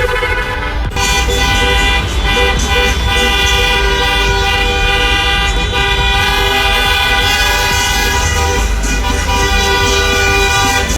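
Several car horns blaring at once in long, steady, overlapping tones, over the low rumble of traffic.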